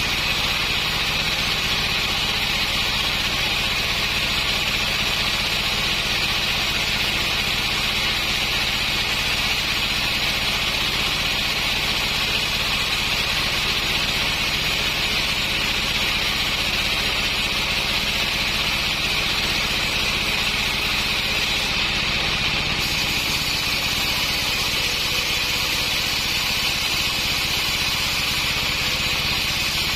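Sawmill running steadily: an engine hum under a constant high hiss, with no break or change.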